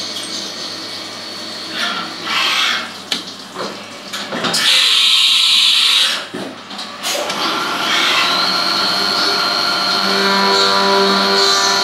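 Haas Minimill CNC milling machine changing tools: a loud hiss lasts about a second and a half midway through as the spindle is up at the tool carousel. About three-quarters of the way in, the spindle spins up with a rising whine, then runs steadily with a high, even tone.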